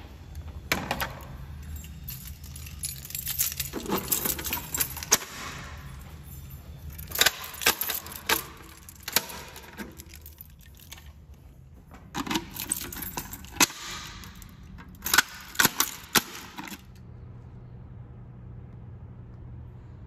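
Irregular metallic clatter and jingling with sharp clicks, in several bursts, stopping about 17 seconds in; a steady low hum remains after.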